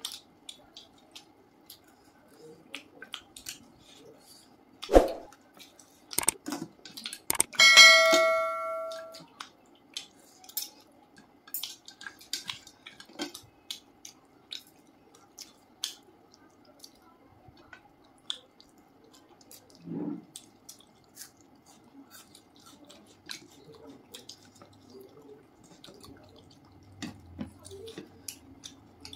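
Close-up eating sounds of two people eating rice and curry with their hands: wet smacking, squishing and small clicks of chewing and fingers. About eight seconds in, a piece of tableware is struck and rings briefly.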